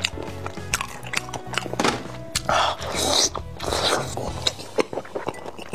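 Close-miked wet eating sounds: lip smacks and chewing of sauce-coated fried skewer food, with two louder sucking slurps about halfway through as food is pulled off the skewer with the mouth. Background music plays underneath.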